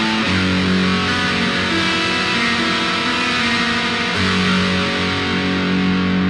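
Electric guitar played through a BOSS DS-1 Distortion pedal: heavily distorted chords held and left to ring, moving to a new chord about a third of a second in and again past the middle.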